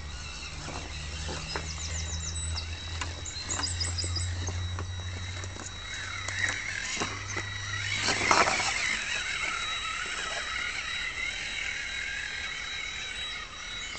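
Tamiya CR-01 electric RC rock crawler driving slowly over rocks and up a wooden pallet ramp: a steady motor and gear whine under scattered clicks and knocks of the tyres and chassis on stone and wood, with a louder, noisier stretch about eight seconds in. A few quick high chirps come near the start.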